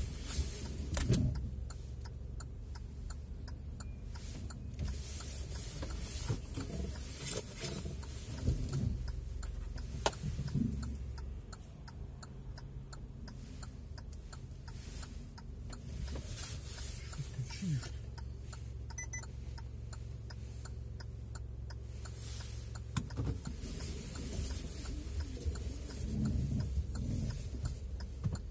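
A car on the move, heard from inside: a steady low rumble of engine and road, with many light ticks and clicks over it.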